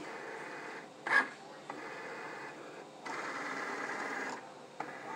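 Cricut Explore Air 2 cutting machine's carriage motors whirring in runs of a second or so that start and stop, as the machine scans the mat. A short, louder burst comes about a second in.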